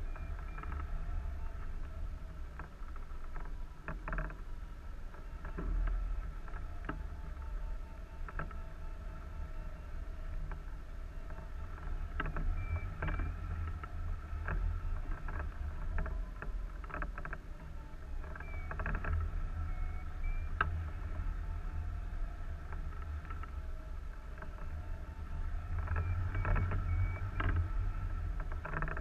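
Airflow buffeting a wing-mounted camera on a hang glider in flight: a steady low rumble, with faint high whistling tones and scattered ticks over it.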